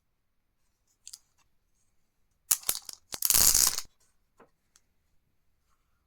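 Toy blind-bag packet being torn open: a few sharp crinkles about two and a half seconds in, then one loud rip lasting under a second. A soft crinkle of the packet comes about a second in.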